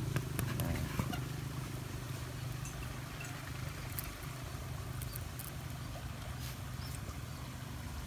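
Light clicks and taps of thin bamboo strips being split and handled by hand, over a steady low hum.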